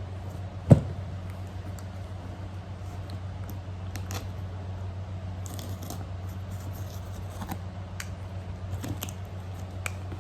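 A single thump about a second in, then scattered light clicks and ticks of small objects being handled, over a steady low hum.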